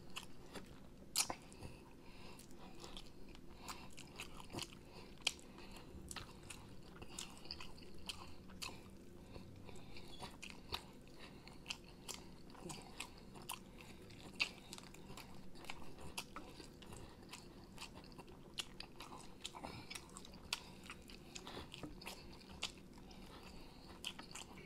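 Quiet close-up chewing and biting of sauced chicken wings, with irregular short clicks and crunches as meat is pulled from the bones.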